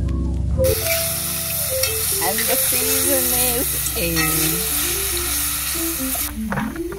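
Chopped onion and tomato sizzling in hot oil in a pot as they are stirred. The sizzle starts about half a second in and cuts off suddenly near the end, over background music.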